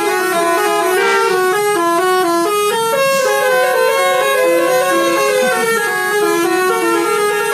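Indonesian 'telolet' multi-tone bus air horn playing a melody: a loud run of held notes stepping up and down, several horn tones sounding together. Two short hissy bursts cut in about a second and about three seconds in.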